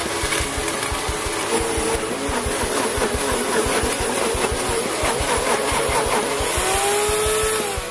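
OTTO high-performance commercial blender switched on and running, its motor whirring as the blades crush ice with chilled Pepsi into a slush; it cuts off near the end.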